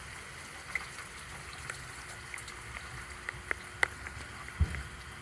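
Rain falling with water running, and irregular sharp drips ticking throughout over a steady low rumble. A dull thump sounds near the end.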